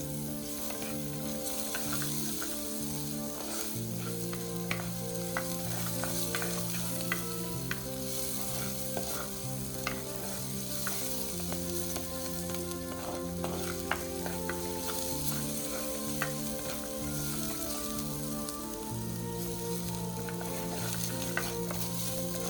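Curry sizzling in a pan while a utensil stirs it, with scattered clicks and scrapes against the pan, over soft background music.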